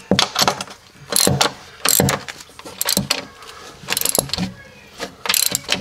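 Socket ratchet wrench clicking in repeated strokes, roughly two a second, as it tightens a nut and washer down on a wedge anchor in a concrete floor.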